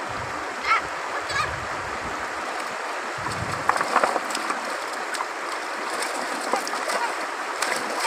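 Shallow river running over stones, with hands splashing and slapping in the water from about halfway through, several sharp splashes in quick succession.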